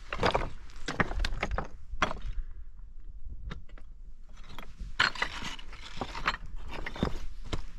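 Footsteps of a hiker walking, about one step a second, with a quieter stretch of lighter clicks and scuffs in the middle.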